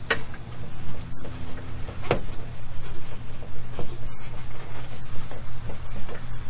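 Crickets chirring steadily in a high, continuous chorus over a steady low hum, with a sharp click at the start and another about two seconds in.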